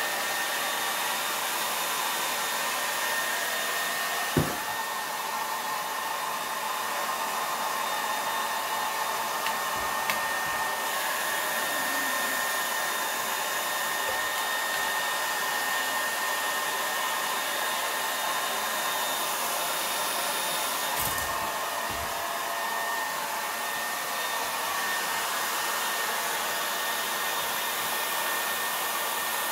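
Handheld hair dryer blowing steadily, a rush of air with a steady high whine over it, used to dry a dog's coat. A single sharp knock about four seconds in, with a few faint clicks later.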